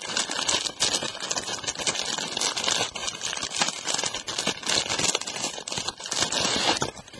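Packaging crinkling and rustling steadily as it is handled, dying down near the end.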